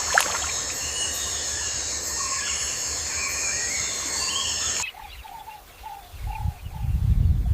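Wild birds chirping over a steady high insect drone, cut off abruptly after about five seconds. What follows is a quieter scene: a short low call repeated about two or three times a second, with a low rumble building up under it.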